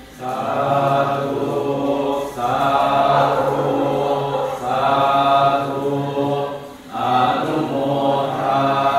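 Buddhist chanting: a group of low voices chanting together on a steady, nearly level pitch. The chant comes in long phrases with a short break for breath about every two to two and a half seconds.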